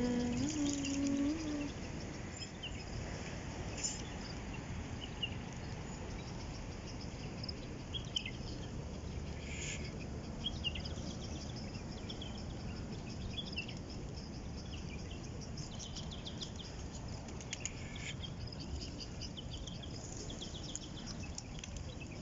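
Many short, high chirps of small birds over a steady outdoor background noise, with a brief low pitched sound in the first second or so.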